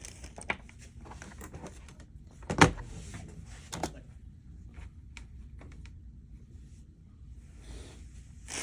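Small hard parts being handled and set down while a padlock shackle is looked for: scattered clicks and knocks, the loudest a sharp knock a little over two and a half seconds in.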